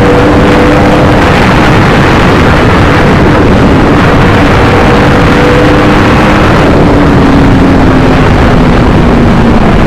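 Yamaha R1 motorcycle's crossplane inline-four engine running at a steady, loud cruise over road and wind rush, its pitch easing down slightly near the end.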